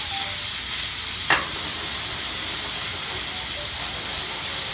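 White wine sizzling steadily as it boils off in a hot skillet of sautéed mushrooms, onions and mahi-mahi, being reduced after deglazing, with a single sharp clack about a second in.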